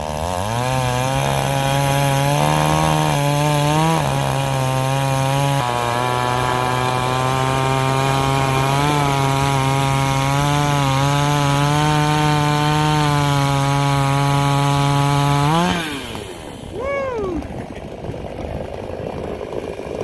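Two-stroke chainsaw revving up and held near full throttle while cutting wood, its pitch dipping slightly now and then under load. About sixteen seconds in, the throttle is released and the engine winds down with a falling whine.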